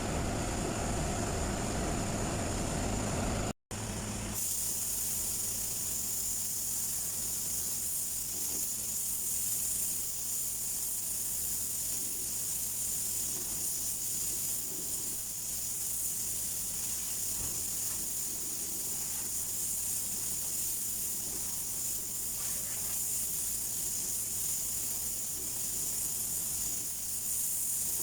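A low, rumbling noise that cuts off abruptly a few seconds in, followed by a steady hiss of compressed air from an air tool in an auto body shop.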